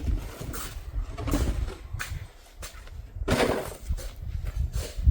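Snow shovels scraping and pushing snow in irregular strokes, with a low wind rumble on the microphone.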